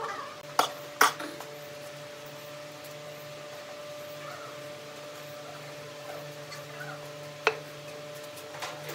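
Steady low hum with sharp knocks of wooden pieces being handled: two about a second in and one more near the end.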